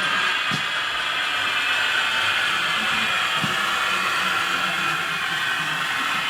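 Radio-controlled model trucks and construction machines running: a steady high whine of small electric motors and gearboxes.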